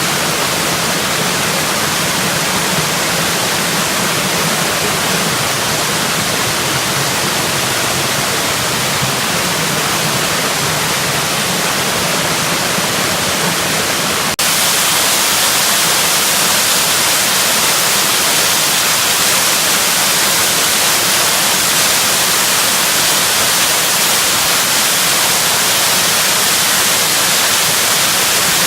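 Waterfall rushing in a steady, loud hiss of falling water. About halfway through, it changes abruptly to a brighter, hissier rush.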